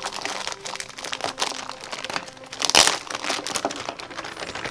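Clear plastic bag crinkling as hands press and handle it: a run of crackles, with one louder crunch a little before the three-second mark.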